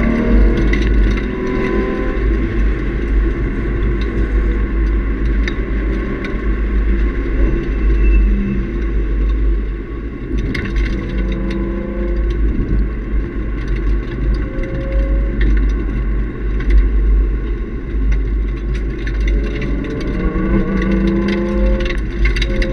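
Nissan 350Z's 3.5-litre V6 with a Nismo cat-back exhaust, heard from inside the cabin while the car is driven on track. The engine note falls and climbs again as it is driven hard, over a heavy low rumble of road and wind noise.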